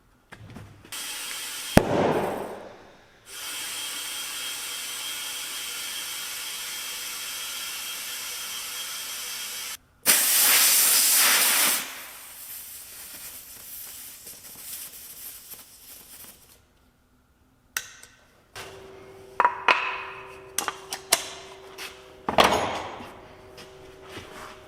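A power tool runs steadily for several seconds while cleaning old bead sealer off a wheel rim. It stops, a louder burst of about two seconds follows, and near the end come a string of clicks and knocks.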